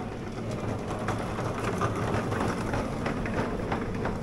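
Busy store ambience: a steady low rumbling noise with scattered faint clicks and clatter.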